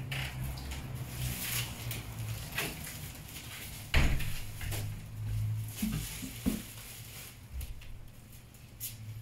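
Hands applying a protective film to a smartphone screen: soft rustles and scrapes as the film's backing liner is peeled and the film is pressed down, with a sharp knock about four seconds in. A low steady hum runs underneath.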